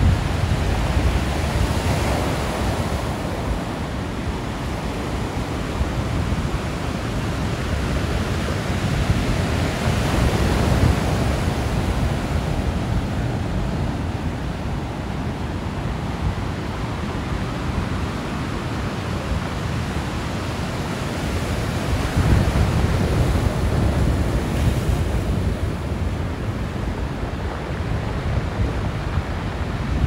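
Sea waves breaking and washing up on a beach, swelling and easing as each wave comes in, with wind rumbling on the microphone.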